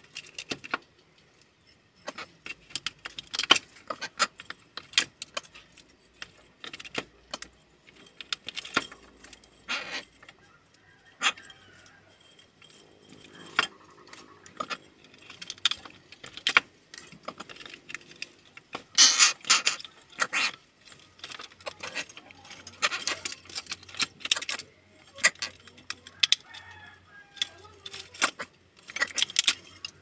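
Greater coucal pecking at a snail shell held under its foot, its beak striking the shell and the wooden floor in a run of sharp, irregular clicks and clatters.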